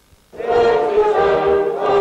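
A large choir singing held notes of a slow song, starting about a third of a second in after a brief silence.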